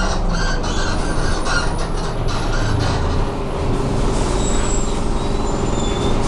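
Renault R312 city bus heard from inside the passenger cabin while driving: steady engine and road rumble with rattling in the first few seconds, and a few faint high squeaks about four seconds in.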